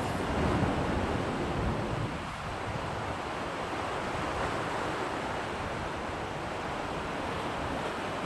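Steady rushing of wind and sea, with wind buffeting the microphone more strongly in the first two seconds.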